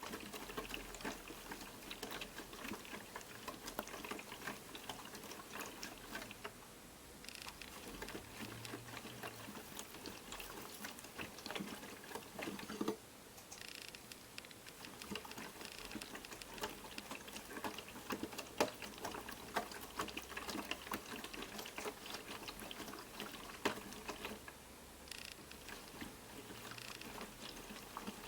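Piko Professional WS5522 washing machine in its main wash: wet laundry and water patter and slosh in the turning drum over a faint low motor hum, with brief lulls a few times.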